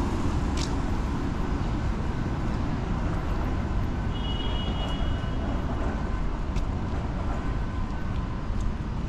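City street ambience: a steady low rumble of traffic on wet roads. A brief high-pitched squeal sounds about four seconds in, and there are a few sharp clicks.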